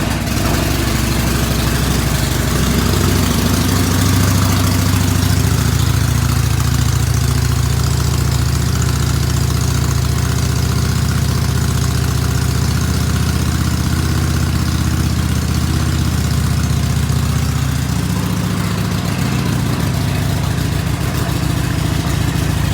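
Harley-Davidson Iron 883's air-cooled V-twin idling steadily just after a cold start, through the stock exhaust with a half-inch hole drilled in the baffle. The idle settles slightly lower near the end.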